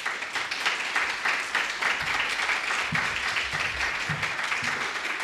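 A small seated audience applauding steadily, the sustained clapping of many hands.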